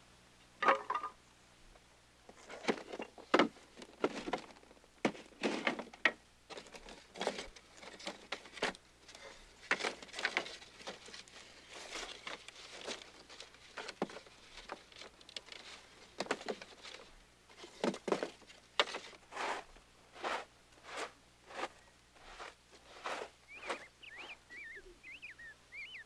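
Irregular wooden knocks and clatters, about one or two a second, from thin wooden strips and ribs of a bark canoe being handled and worked by hand. A few short high squeaks near the end.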